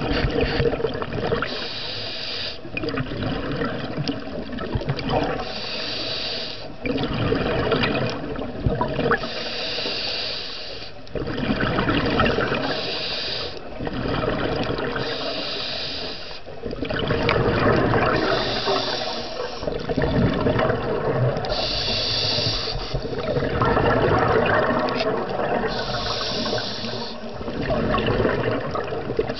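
Scuba diver breathing through a regulator underwater: a short hiss on each inhale, about every three to four seconds, with a long gurgling rush of exhaled bubbles between them.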